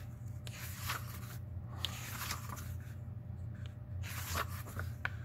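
Pages of an old hardcover book being turned by hand: several soft paper rustles and small crinkles, over a steady low hum.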